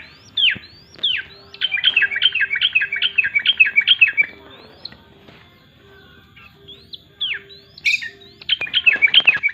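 Yellow-vented bulbul (trucukan) singing busily: two quick runs of short falling notes, about six a second, with single rising and falling whistled notes between them.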